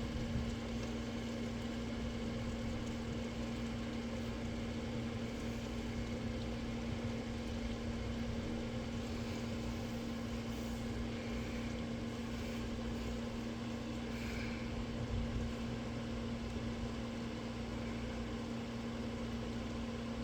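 A machine humming steadily, with one constant low tone over a faint hiss.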